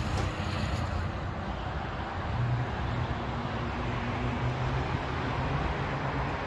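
Steady road traffic noise of cars moving along a multi-lane road, with one vehicle's low engine hum standing out for a couple of seconds midway.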